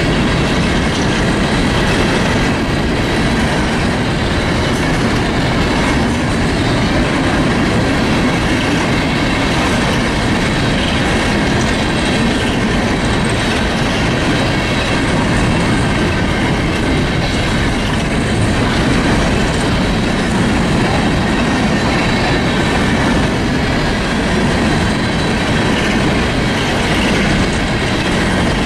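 Freight train of covered hopper cars rolling past at steady speed: a continuous rumble with the wheels clattering over the rails.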